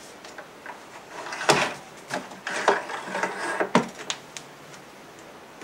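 Telescopic whip antenna on a small portable CRT TV being pulled out: sharp clicks and rattling scrapes as the metal sections slide and the plastic cabinet is handled, over a faint hiss of TV static.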